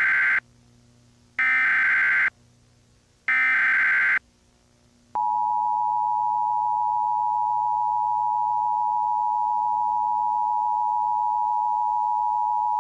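Emergency Alert System SAME header: three short, loud, buzzing data bursts, the first already under way, followed about five seconds in by the steady two-tone EAS attention signal.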